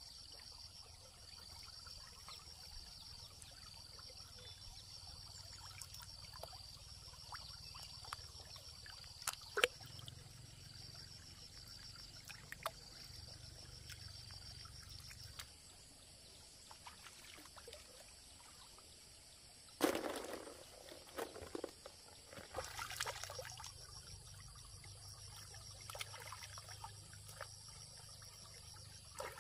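Water trickling and splashing, with a louder splash about two-thirds of the way through followed by smaller ones, and faint insect chirping pulsing steadily in the first half.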